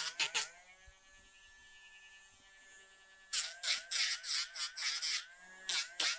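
Dremel rotary nail grinder running with a steady whine while it files down a dog's toenails. There is a quick run of gritty grinding touches at the start, then about three seconds of the motor running alone, then another run of touches from about three seconds in until near the end.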